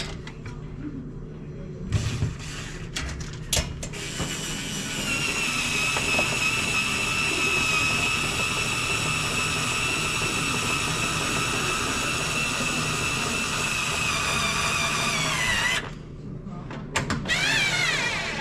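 Power drill motor running at a steady speed for about twelve seconds with a high whine, the pitch sliding down as it spins to a stop; a couple of short, wavering runs follow near the end. A few clicks and knocks come before it.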